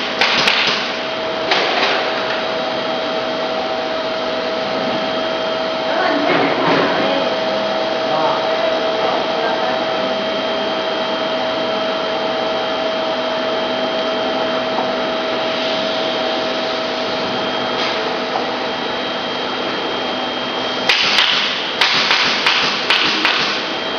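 Steady mechanical hum with a faint high whine, like a motor running. Near the start and again in the last few seconds, sharp metal clicks and taps as the hot foil stamping machine's foil feed parts are adjusted by hand.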